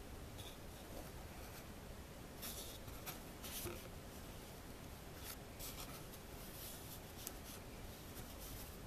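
Faint, intermittent scratching and rubbing as a copper wire ring is turned by hand on a paper surface, with a few short scrapes of a fraction of a second each.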